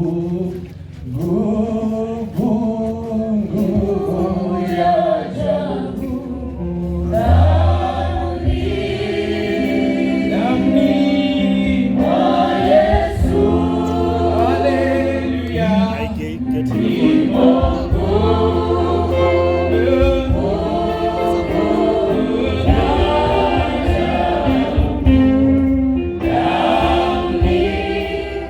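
Congregation singing a gospel song together in chorus, with a low steady accompaniment coming in about seven seconds in.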